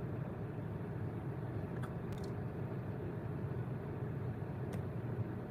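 Steady low rumble of a car's engine and road noise, with a few faint ticks about two seconds in and near the end.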